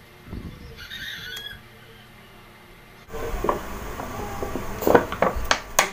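A thin plastic water bottle crackling and clicking as it is gripped and tipped up to drink from, with several sharp cracks near the end. Brief squeaks come about a second in.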